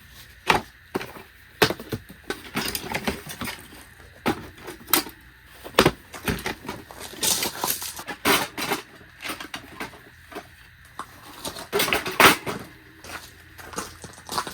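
Irregular knocks and clatters, some sharp, with rustling and scraping between them.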